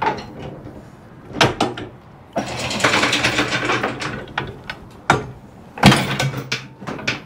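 Metal clanks and knocks from a boat's bow anchor and its fold-out release mechanism being worked by hand in the anchor locker, with a rattling scrape lasting about two seconds in the middle and the sharpest clank near the end.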